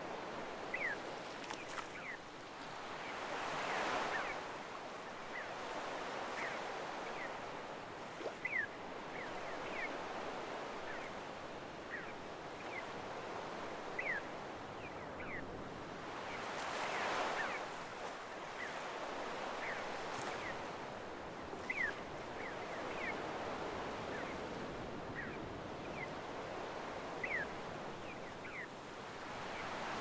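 Small waves washing up a sandy beach, the surf swelling as a wave breaks about every thirteen seconds. Short high seagull calls sound again and again over the surf.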